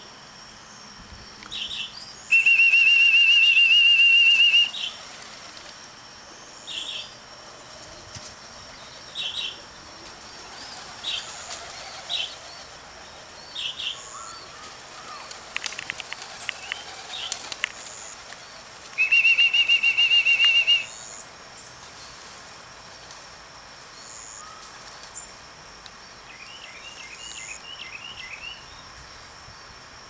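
Two long trilling whistle blasts, each about two seconds and much louder than anything else, with short repeated chirps between them and a flurry of pigeon wing flaps and clatters near the middle.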